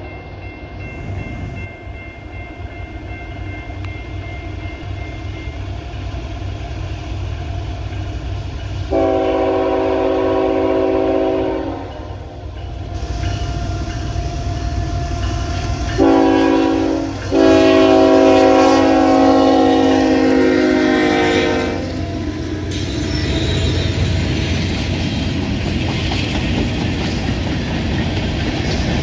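CSX freight train led by a GE ET44AH diesel locomotive approaching with a rumble that grows louder, then sounding its air horn as a chord of several notes: one long blast, a pause, then a short blast run straight into a long one. The locomotives then pass and the freight cars roll by with clickety-clack wheel noise over a steady rumble.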